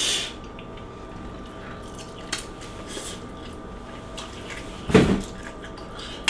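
Eating sounds from a person eating fiery-hot noodles: small wet clicks and smacks of chewing, with one sharp, loud huff of breath about five seconds in, a reaction to the heat. A faint steady hum sits underneath.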